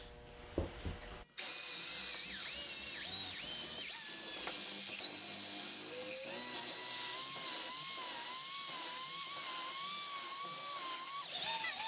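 Cordless drill driving a small twist bit into a wooden chair arm to bore a pilot hole: a high motor whine whose pitch wavers with the load. It starts abruptly about a second in and runs steadily for about ten seconds before stopping.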